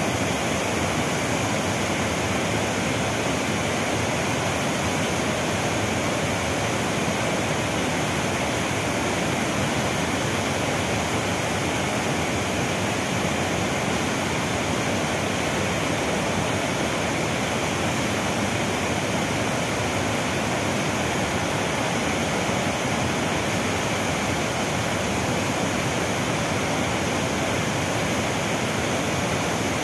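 Waterfall in full spate, brown floodwater rushing over boulders in a steady roar of water.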